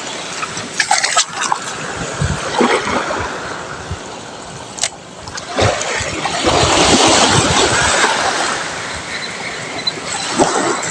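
Small sea waves washing and splashing against the shore, swelling louder about six seconds in.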